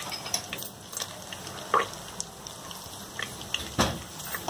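Curry leaves and mustard seeds sizzling in hot ghee and oil: a steady hiss with scattered sharp crackling pops, a few of them louder, as fresh curry leaves hit the hot tempering.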